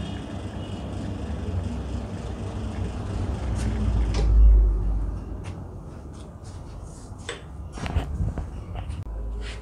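La Cimbali M39 espresso machine pulling a shot: the pump hum runs steadily, then stops a little over four seconds in with a dull thump. A few sharp clicks and knocks follow as the glass is lifted off the steel drip tray.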